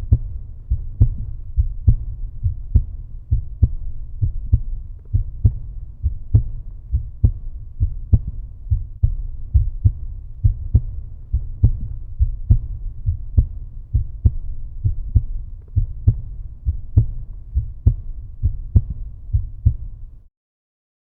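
Heartbeat, a steady, even rhythm of low, muffled thumps at about one beat a second, each beat a close double 'lub-dub'.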